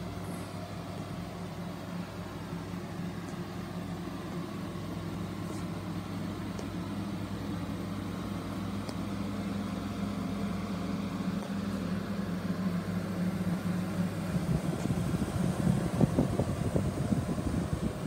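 Steady low mechanical hum that stops about fourteen and a half seconds in, followed by irregular rustling and light bumps.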